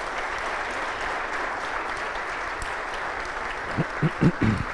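Audience applauding at the close of a talk, a steady patter of many hands clapping. Near the end a few short, louder low sounds cut through it.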